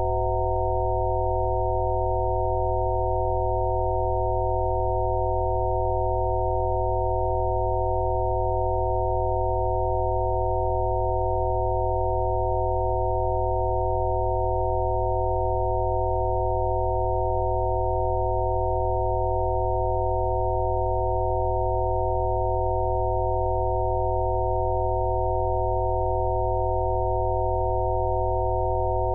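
Synthesized Rife-frequency tones: a chord of several steady pure sine tones, mid-pitched, held unchanged over a low drone.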